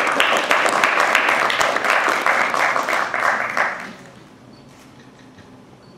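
Audience applauding, the clapping stopping about four seconds in.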